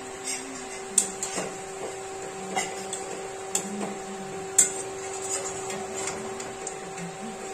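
Gulgule fritters deep-frying in hot oil in a kadhai with a steady sizzle, while a slotted metal spatula knocks and scrapes against the pan as the fritters are turned: several sharp clicks, the loudest about a second in and just past the middle. A steady hum runs underneath.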